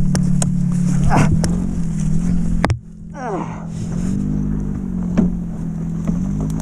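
Yamaha YZ125X two-stroke dirt bike engine running at idle while the dropped bike is lifted upright. A sharp knock comes about two and a half seconds in, the sound dips briefly, and then the idle picks up slightly twice.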